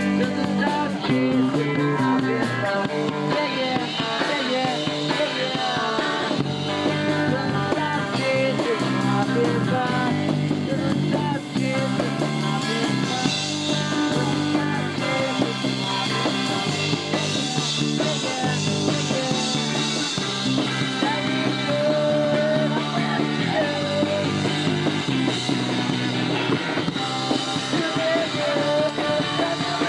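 Punk rock band playing a song live, loud and without a break.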